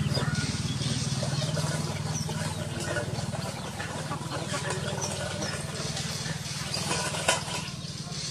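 Steady low engine hum that eases a little partway through, with scattered short high chirps and one sharp click about seven seconds in.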